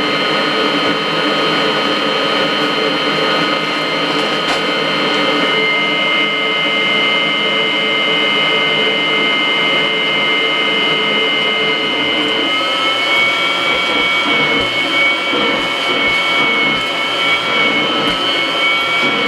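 Kirby vacuum cleaner running with a steady high-pitched whine. About twelve seconds in, the whine steps up slightly in pitch and starts to waver, and a lower hum drops out.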